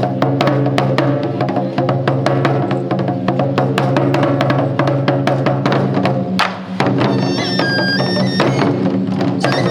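Japanese taiko drum ensemble playing rapid, steady strikes over a sustained droning tone. The drone drops out briefly about two-thirds of the way through, and a high melody line enters soon after.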